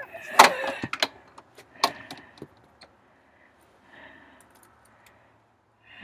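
Sharp metal clicks and jangling as an aluminium storm door is handled, loudest in the first second and dying away by about two and a half seconds in. Later come two faint, short cat meows, the second at the very end.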